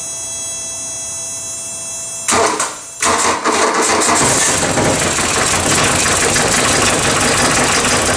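A steady electrical buzz, then about two seconds in a brief burst of starter cranking and the 1977 VW Rabbit's four-cylinder diesel catches on a cold start and runs loud and a bit rough with the cold-start pump retard pulled. The owner takes the roughness for the engine running on about three cylinders, one injector not yet bled of air.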